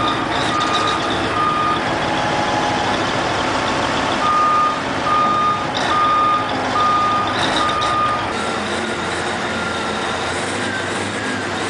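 Back-up alarm on heavy earthmoving machinery beeping about twice a second, over the steady noise of large engines working. The beeping comes in two runs: one stops about two seconds in, and another runs from about four to eight seconds.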